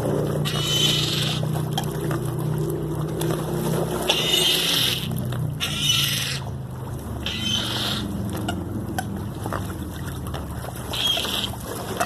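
A large flock of American coots and ducks crowding on the water, with short high-pitched bird cries breaking out every second or two over a steady low rumble.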